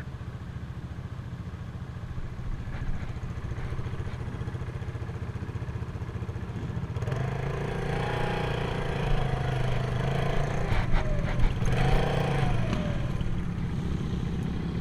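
Quad's (ATV's) engine running at a steady low idle, then from about halfway through running harder and louder with its pitch rising and falling. Light clicks and rattles come in with the louder part.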